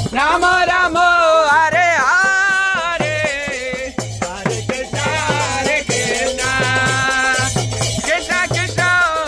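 Kirtan: a man sings a devotional chant over a mridanga drum beaten in a steady rhythm, with kartals (small hand cymbals) clashing along.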